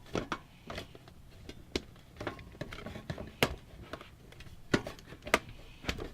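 Irregular clicks and knocks of metal and plastic parts being handled as an optical drive is pushed into a PC case's drive bay, four of them sharper than the rest.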